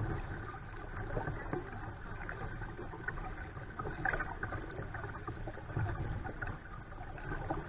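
A kayak being paddled along a river: water splashing and trickling along the hull, picked up close by a camera on the bow deck, over a steady low rumble.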